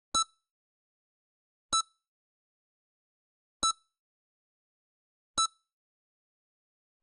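EKG heart monitor beeping: four short, high single beeps, roughly one every second and three-quarters, with silence between. Each beep marks a heartbeat.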